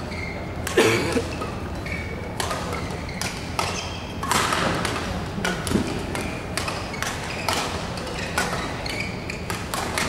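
Badminton rally: rackets strike the shuttlecock in a string of sharp hits, roughly one every half-second to second, with short squeaks of shoes on the court.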